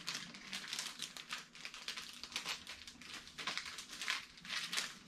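Plastic packaging crinkling and rustling in irregular short crackles as goods are handled and unpacked.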